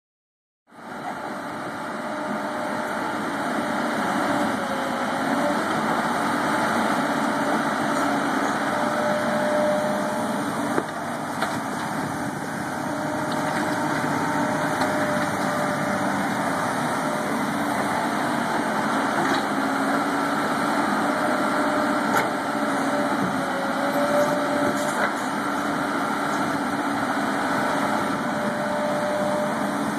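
Samsung 210 tracked excavator's diesel engine running steadily as the machine digs and loads, with a whine that comes and goes and shifts in pitch as the arm moves. A few light knocks sound along the way.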